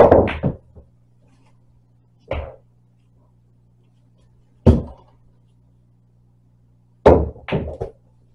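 Pool balls clacking on an MDF pool table as shots are played: a quick run of cue-strike and ball-on-ball clacks at the start, a duller knock a couple of seconds in, a single sharp clack near the middle, and another run of clacks near the end.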